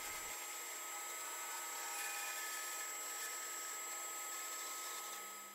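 Bandsaw running and cutting the tenon on a turned wooden mallet handle: a steady hiss with a thin steady whine, fading out at the end.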